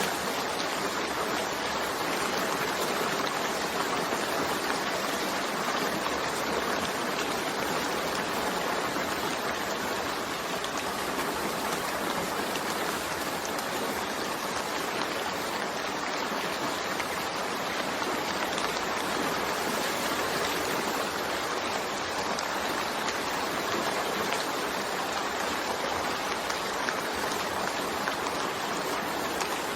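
Steady rainfall: a continuous, even hiss of rain with no thunder.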